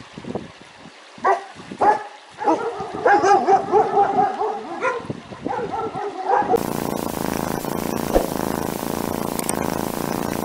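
Puppies giving a few short yips, then whining and yelping in wavering, repeated cries for several seconds. About six and a half seconds in, the cries stop and a steady, even noise takes over.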